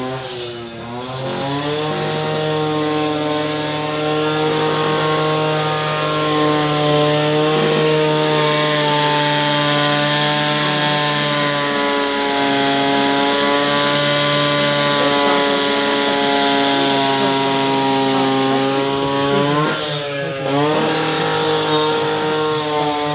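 Loud, steady engine or motor drone from construction machinery, its pitch briefly dropping and then recovering about a second in and again near the end.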